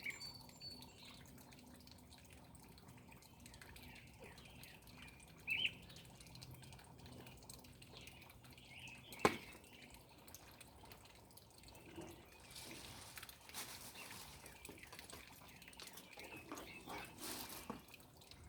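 Faint outdoor ambience of dripping water with an occasional bird chirp. There is one sharp knock about nine seconds in, and a soft rustling hiss through the last few seconds.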